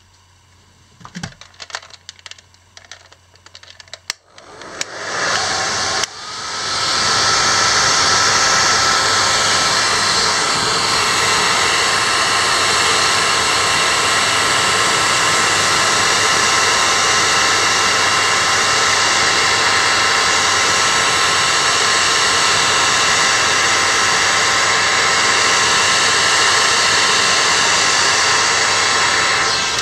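A few light clicks of handling plastic opening picks against the phone, then a hair dryer starts up and blows steadily and loudly onto the Xperia Z1's glass back panel to soften its adhesive, cutting off just before the end.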